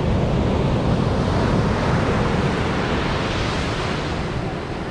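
Ocean surf breaking and washing up the sand, a steady rushing hiss that swells about halfway through. Wind buffets the microphone with a low rumble throughout.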